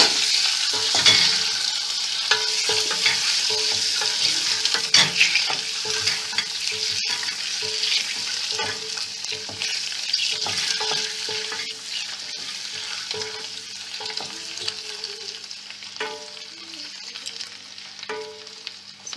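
Halved boiled eggs frying in hot oil in a stainless steel pot, sizzling, while a wooden spoon stirs them with scattered knocks and scrapes against the pot. The sizzle slowly dies down over the stretch.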